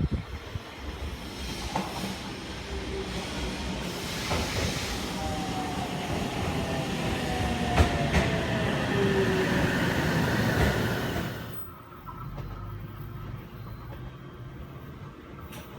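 Passenger train running on the rails with wheel clatter and a slowly falling whine, growing louder toward the middle, then dropping away suddenly near the end.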